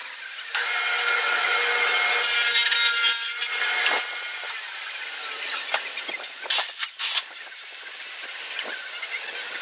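Table saw with a red blade running through wood, then switched off, its whine falling as the blade spins down about five seconds in. A few sharp knocks of the board being handled follow.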